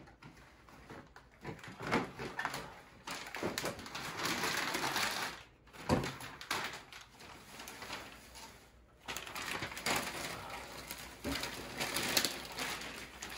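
Gift wrapping paper rustling and crumpling as a present is unwrapped, in uneven bursts of handling, with a sharp thump about halfway through.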